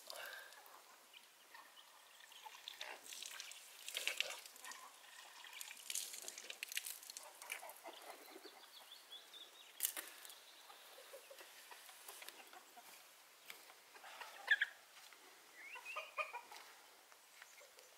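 Chickens clucking now and then, with a few short, sharp knocks in between.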